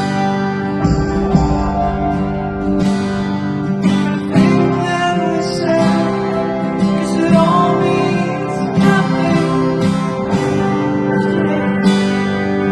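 Background music: acoustic guitar with sustained notes, with a voice singing in places.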